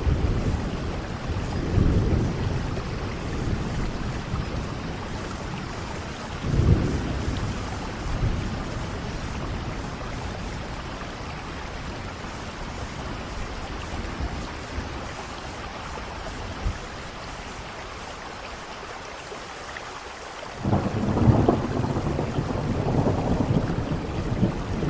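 Steady rain falling during a thunderstorm, with low thunder rumbles swelling up a few times and a louder rolling rumble starting near the end.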